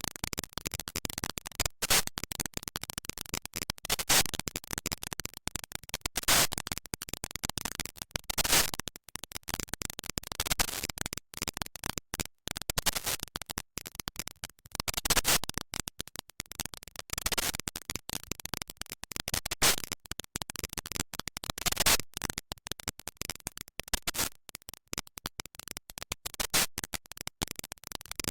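Computer-generated sonification of NASA Ulysses spacecraft data: a dense, irregular crackle of noise bursts, with louder bursts every two seconds or so. The bursts stand for micrometeorite impacts on the spacecraft.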